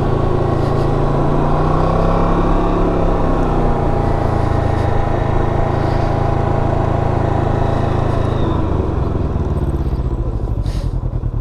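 2020 Can-Am Ryker 600's two-cylinder engine running under way, then dropping to a pulsing idle about eight and a half seconds in as the three-wheeler rolls to a stop. A short, sharp click comes near the end.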